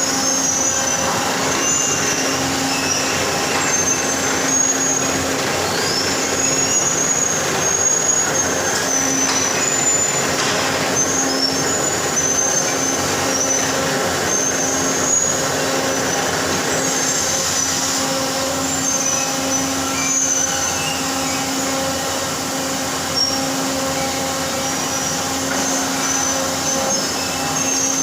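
Machining noise from a CNC machine: a steady mechanical drone with a hum that swells and fades in a regular pulse, and short high-pitched squeals coming and going throughout.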